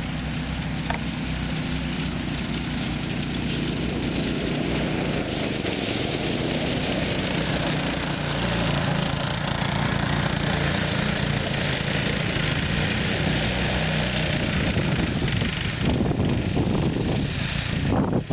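Go-kart's small engine running steadily, slowly growing louder, with wind gusting across the microphone near the end.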